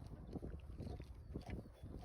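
Wind buffeting the microphone as a steady low rumble, with irregular footsteps on a woodland path.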